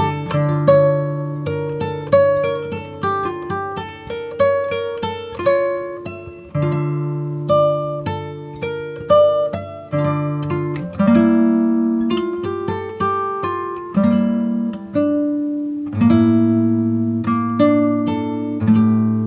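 Background music of plucked acoustic guitar: picked melody notes, each fading away, over held bass notes.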